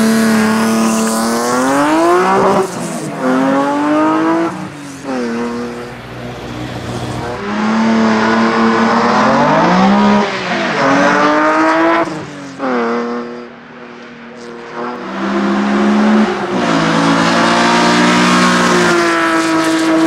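BMW E30 HRT 3.0-litre hillclimb race car engine revving hard. The pitch climbs and falls back several times, in the pattern of upshifts under full acceleration, with a quieter stretch past the middle.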